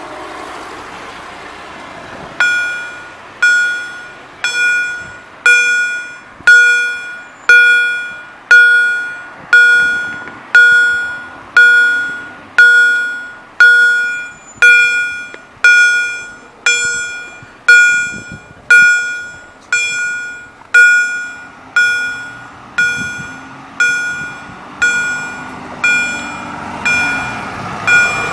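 Railroad crossing warning bell (EHL electromechanical bell) striking about once a second, each stroke ringing and dying away, starting about two seconds in. It signals that the crossing is activated for an approaching train.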